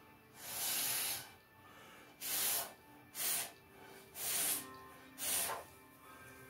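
Five short puffs of air blown through a straw onto wet acrylic paint to push it across the canvas in a Dutch pour, each a brief hiss, the first and longest about a second.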